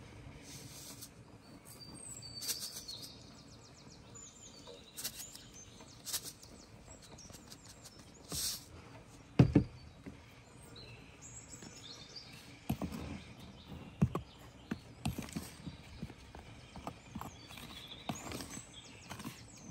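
Birds chirping and tweeting in short high calls, over a low outdoor background, with scattered sharp knocks and clinks. The loudest knock comes about halfway through, and a cluster of them follows in the second half.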